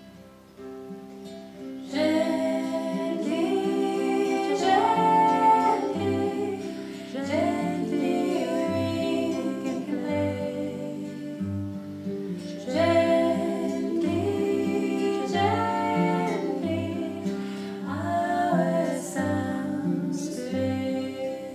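Classical nylon-string guitar strummed and picked in a steady rhythm. A woman's singing voice joins about two seconds in and carries the melody over it.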